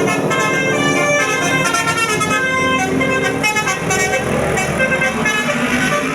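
Bus 'basuri' musical horn playing a telolet melody: a run of horn notes changing pitch in quick succession.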